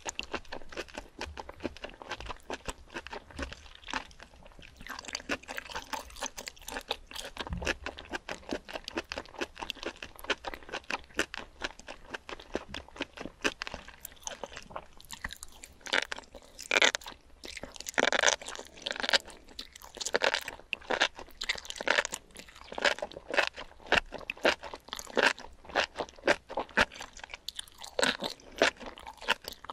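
Close-miked chewing and crunching of spicy enoki mushrooms in red sauce: a fast run of wet, crisp mouth clicks, louder and busier in the second half.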